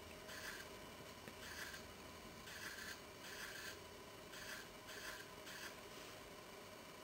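Fingertip rubbing across an iPad's glass touchscreen: about seven short, faint strokes a fraction of a second each, as marks and a signature are drawn.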